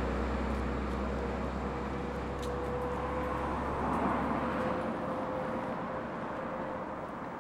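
Road traffic at night: a motor vehicle passing, its noise swelling about four seconds in and then fading, with a low rumble dying away and a faint steady hum underneath.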